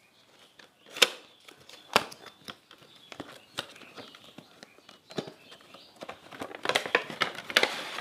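Cardboard box opened by hand and a clear plastic blister pack slid out: sharp clicks about one and two seconds in, then scattered crinkling and crackling of the plastic packaging that gets busier near the end.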